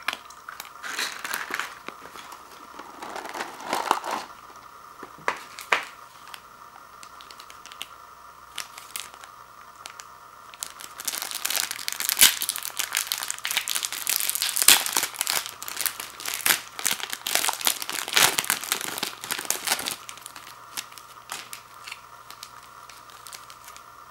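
Small plastic seasoning packets crinkling as they are handled: a few short bursts in the first few seconds, then a long stretch of dense crinkling from about ten seconds in, fading out near the end.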